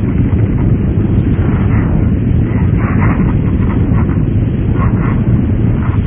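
Harsh noise music made with guitar, metals, tapes and electronics: a loud, dense, steady low rumble with smeared hissing flares in the middle range every second or so.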